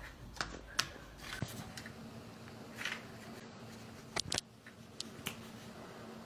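Small handling sounds: a few sharp clicks and knocks, with light scratching and rustling of pencils on the paper of a colouring book, over a faint steady hum.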